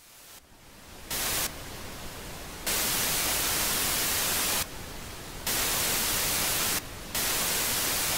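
Television static hiss, fading in over the first second, then cutting abruptly between louder and softer stretches several times.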